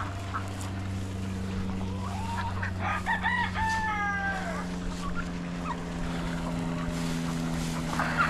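A rooster crowing once, about three seconds in, its call ending in a long falling note, over a steady low hum.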